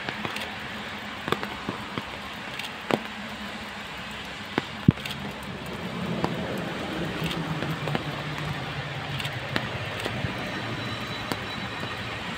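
Siemens Vectron electric locomotive hauling a freight train on approach, its low hum growing from about halfway in. Scattered sharp clicks sound over a steady background noise.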